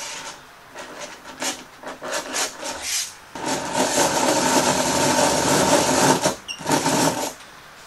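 Hand-cranked eggbeater drill boring a screw hole into a clamped wooden board, with light, uneven scraping strokes. About three seconds in a countersink bit takes over with a loud, steady grinding chatter, which stops a little before the end.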